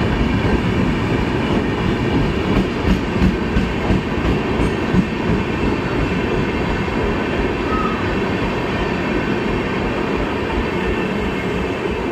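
Indian Railways express train running on the rails: a steady, loud rumble of wheels and carriage, with a few louder knocks a few seconds in.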